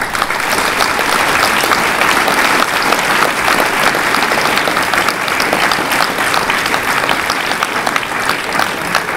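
Large seated audience applauding, with dense clapping that starts suddenly and holds steady, easing slightly near the end.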